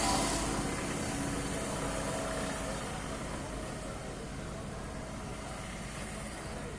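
A vehicle engine running steadily and slowly growing fainter.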